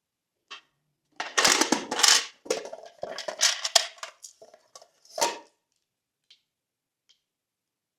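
Slime being squished and mixed by hand, giving crackling, popping bursts, the densest about one to two seconds in, then scattered clicks and one more burst about five seconds in.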